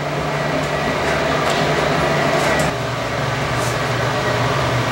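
A steady mechanical hum from an unseen machine, with a few light clicks and taps as a plastic funnel is set in the engine's oil filler neck and an oil bottle is handled.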